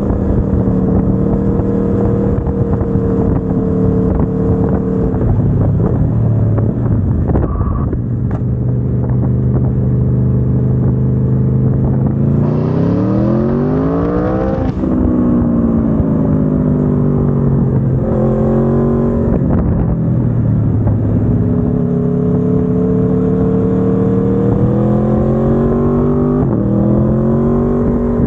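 Aprilia Tuono V4 1100 Factory's V4 engine running through its stock exhaust while ridden: it holds steady speed, then climbs sharply in revs a little before halfway and drops at a gear change, with shorter climbs and drops later on.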